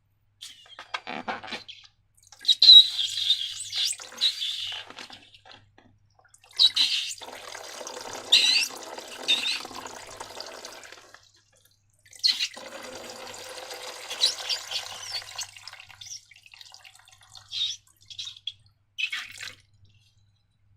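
Wet, sticky slime being squeezed and worked out of a balloon, in three runs of squelching a few seconds long with brief squeaks, then a few short separate squishes near the end.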